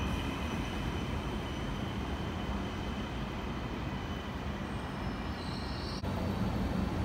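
Trenitalia ETR421 'Rock' double-deck electric train approaching slowly from a distance: a steady low rumble with faint thin high-pitched squeals. There is a sudden break about six seconds in, after which a louder low hum follows.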